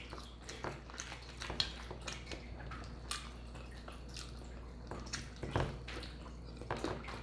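Close-miked chewing of a fried chicken sandwich: irregular wet smacks and small clicks of the mouth as the food is chewed.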